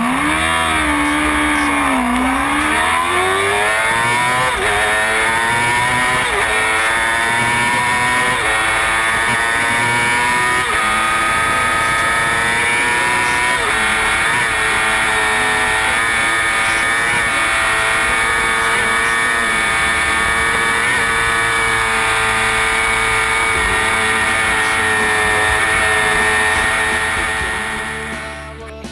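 Racing motorcycle engine under hard acceleration. Its pitch climbs over the first dozen seconds with brief dips at each gear change, then holds high and steady before fading out near the end.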